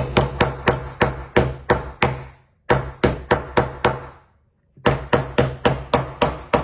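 Rapid hard taps, about three to four a second, in three runs with short pauses: a tool striking the cracked back glass of an iPhone XS Max to chip it off.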